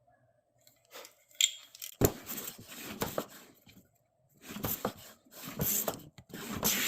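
Old wooden hand plane taking test shavings off a board: a couple of knocks as it is set down, then three long hissing, scraping strokes of the iron cutting wood.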